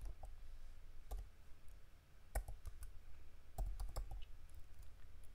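Computer keyboard typing: short clicking keystrokes scattered with pauses between them, a few bunched together near the end.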